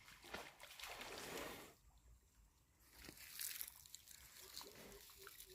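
Faint water sloshing and splashing in two swells, with a few small knocks.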